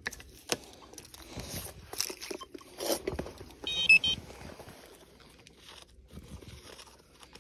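Soil crunching and scattered knocks as a plug of earth is dug and broken up with a hand digger. About four seconds in, a short burst of rapid, high-pitched electronic beeping comes from a metal-detecting pinpointer as it locates the target in the hole.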